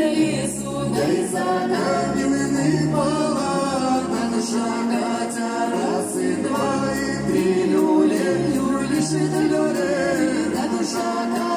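A man and a woman singing a song together live into microphones over amplified music, with low bass notes underneath.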